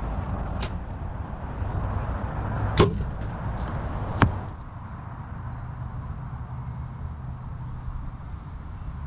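Compound bow shots at a target: three sharp snaps of arrows being loosed and striking. The first is faint, the loudest comes about three seconds in, and another follows about a second and a half later.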